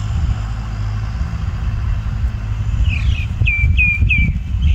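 Tractor engine running in the distance, a steady low rumble. About three seconds in, a bird gives a short series of quick, descending chirps.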